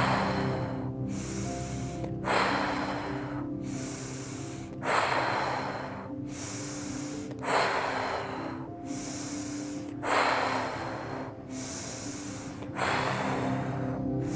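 A woman doing paced breathwork, breathing in through the nose and blowing out hard through pursed lips: six forceful exhales about two and a half seconds apart, with quieter inhales between, over soft background music.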